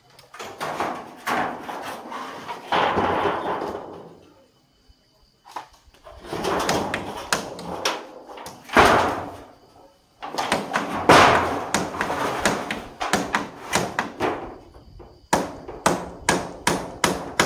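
Corrugated metal roofing sheets being handled and laid on a bamboo roof frame, scraping and clattering in loud bursts, with a quick run of sharp knocks near the end.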